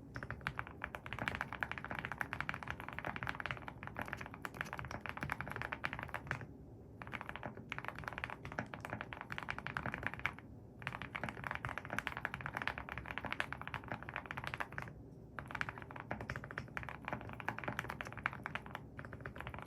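Fast typing on a Link65 mechanical keyboard with an FR4 plate and Gateron Deep Ink linear switches: a dense stream of keystrokes, broken by short pauses about seven, ten and a half, and fifteen seconds in.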